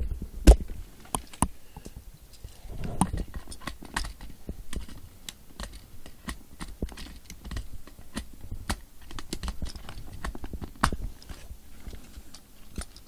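Hard plastic toy parts of a Power Rangers Delta Runner Zord and Megazord clicking and knocking together as they are handled, taken apart and pieced back together. The clicks come irregularly, with a louder knock about half a second in and another near eleven seconds.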